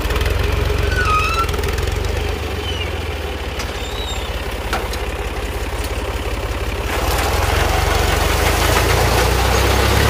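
Al Ghazi 65 hp tractor's diesel engine running steadily under load as it drives a front-mounted wheat reaper through standing wheat. The sound gets louder about seven seconds in.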